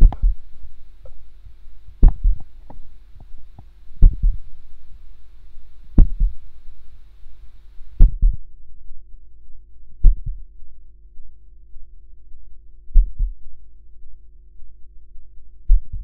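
Heartbeat sound effect: deep double thumps about every two seconds, then spacing out after about ten seconds to only two more beats, a heart slowing and stopping. A steady low hum runs underneath.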